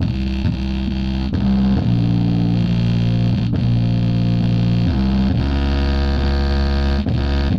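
Bass-heavy music played through a homemade active subwoofer, an OCL amplifier kit with a subwoofer filter, into a 6-inch speaker. It comes out as a run of deep held bass notes that change every second or so, over a steady mains hum.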